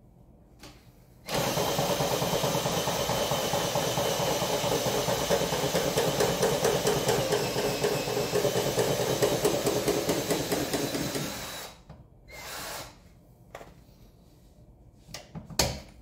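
Power drill running steadily for about ten seconds, driving the scissor jack's screw to lower the car back toward the ground; it stops near the end and a few tool knocks and clicks follow.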